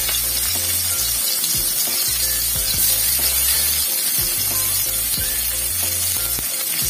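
Chopped onions frying in hot oil in a kadai, a steady sizzle throughout.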